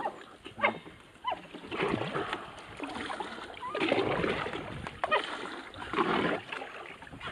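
Water splashing in surges about every two seconds, with a few short high-pitched calls between them.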